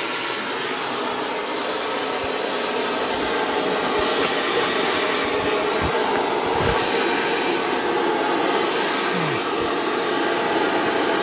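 Old gas ring, modified from town gas to run on propane, burning with a steady hiss of flame under bronze half-rings being heated for soldering. A few low knocks come in the second half as the halves are handled.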